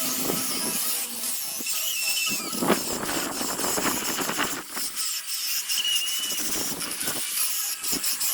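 A power sanding tool abrading zelkova root wood: a steady rasping noise with a few brief squeals as the abrasive bites.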